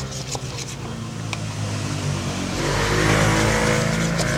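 A motor vehicle's engine running steadily, growing louder about halfway through.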